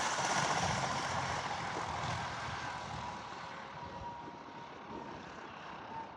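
Cessna A185F's turbonormalized Continental six-cylinder engine and propeller as the landing plane moves away, the sound fading steadily.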